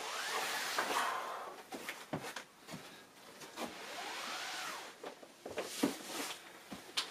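Heavy sand-filled gunny sack dragged across carpet on a resistance band: two swishing slides, each about a second long, one at the start and one about four seconds in. Scattered knocks and thumps fall between them and near the end.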